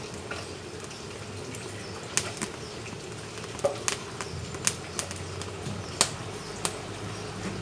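Firewood burning in a wood-fired cooking stove, crackling: irregular sharp pops and snaps over a steady low background, with the loudest snaps a little past two seconds and about six seconds in.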